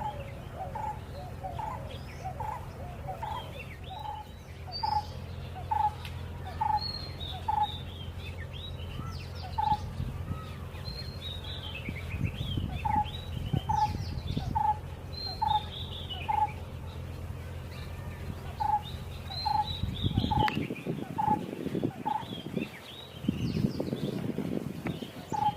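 Birds calling: one bird repeats a short single note about twice a second in long runs, while other birds chirp higher. A steady low hum sits underneath, with some rough rumbling near the end.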